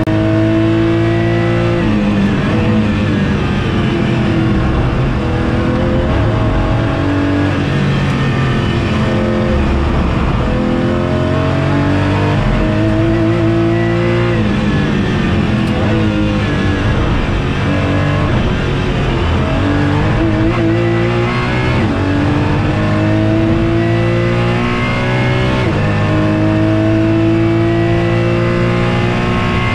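Porsche GT4 race car's flat-six engine, heard from inside the cabin, running hard on track: its pitch climbs repeatedly and drops suddenly at each upshift, with some stretches of falling pitch as it slows.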